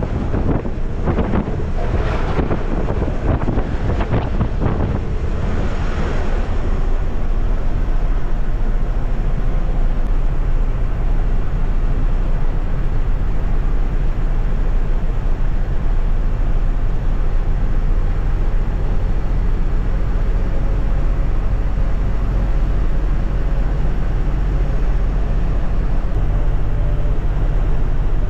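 Wind buffeting the microphone for the first six seconds or so, then the steady low drone of an Ashok Leyland sleeper coach running along the highway, heard inside the cabin.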